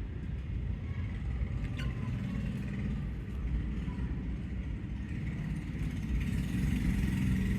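Steady low rumble, with a faint short falling chirp about two seconds in.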